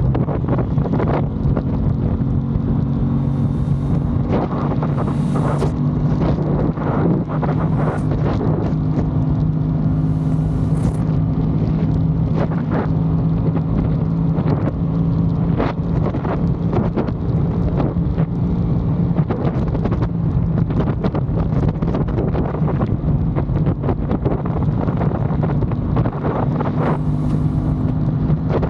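Aprilia Tuono 660 Factory's parallel-twin engine running at a steady, even pace while riding, with heavy wind buffeting on the microphone.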